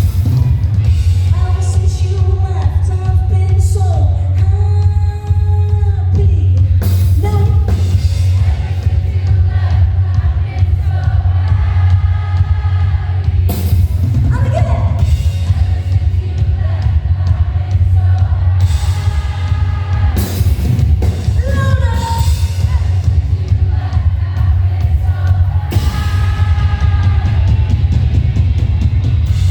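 Live pop-rock band playing with a woman singing the lead vocal, over heavy, steady bass and drums.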